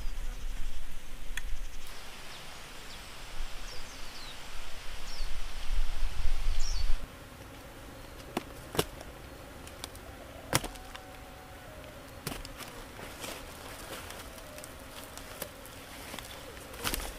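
A loud, gusty low rumble for the first several seconds cuts off suddenly. Then come scattered sharp, woody knocks, about seven of them, as dried cassava roots are dropped into a woven basket.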